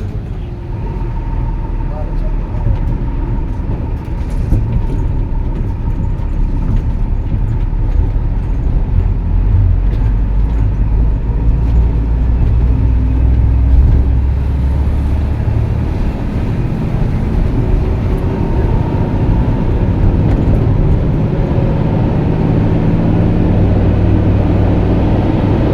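Vehicle driving on a road: steady low engine and road rumble throughout.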